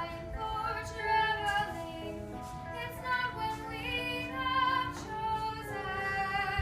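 An 11-year-old girl singing a musical theatre solo, moving through a melody and holding some notes for a second or more.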